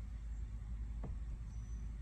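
A steady low rumble with a single faint click about a second in.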